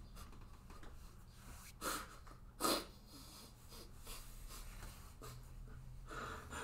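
A man crying quietly, with two short sniffs close together about two seconds in and a softer breath near the end.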